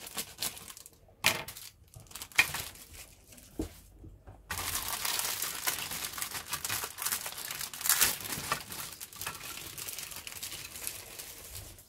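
A thin plastic parts bag being cut with scissors, with a few sharp snips in the first four seconds, then crinkling continuously from about four and a half seconds in as a grey plastic model-kit sprue is pulled out of it.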